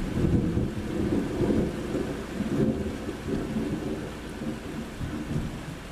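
Thunder rumbling low and unevenly for several seconds, fading near the end, over steady rain.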